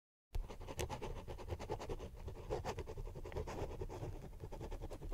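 Dense, irregular scratching with rapid clicks, starting suddenly about a third of a second in.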